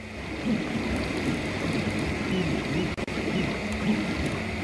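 Homemade 3D printer printing in orange PLA: its stepper motors whine in short rising and falling tones as the print head moves, over a steady hiss.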